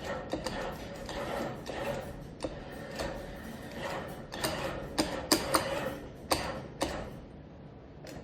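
Claw crane machine mechanism clicking and knocking: a run of sharp, irregular clicks over a steady machine hum, the loudest coming in a cluster about five to seven seconds in, after which the hum drops away.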